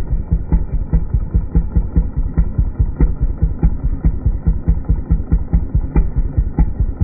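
Homelite chainsaw engine idling, with an even pulsing of about three to four beats a second.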